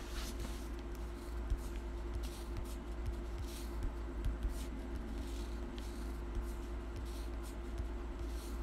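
Faint, irregular soft taps and rubs of fingertips on a smartphone touchscreen during password typing, over a steady low hum.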